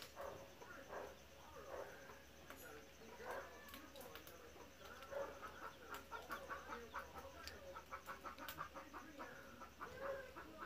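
Faint clucking of chickens, short irregular calls coming in quick runs, with a few sharp clicks.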